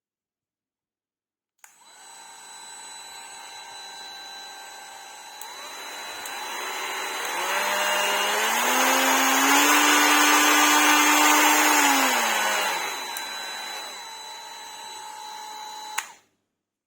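Parkside PGSA 20-Li A1 cordless die grinder running with a whine. The whine rises in pitch and grows louder in the middle, holds, then falls back again. It starts and stops abruptly.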